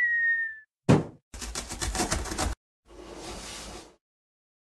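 Cartoon sound effects for an animated intro: a short whistle at the start, a thump about a second in, a fast rattle for just over a second, then a whoosh.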